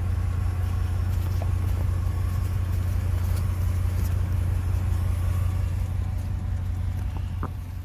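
Ram 2500 pickup's engine idling with a steady low hum.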